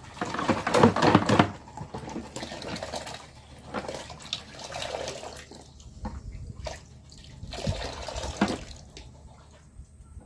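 Dirty water pouring and splashing out of a portable upholstery spot cleaner's plastic tank into a plastic basin, coming in uneven spurts as the tank is tipped and turned, with light knocks of plastic being handled.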